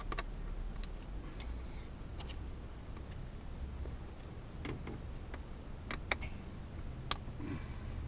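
Scattered light clicks and taps, a second or more apart, from screwdrivers working the BMW E46's front electric window switch out of its plastic trim, over a low steady hum.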